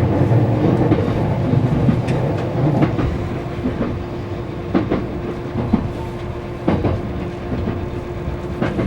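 A vehicle running: a steady low rumble with scattered sharp clacks and a faint steady hum.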